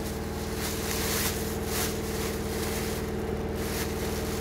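Plastic packaging bag rustling in short bursts as hands dig through it in a cardboard box, over a steady low hum.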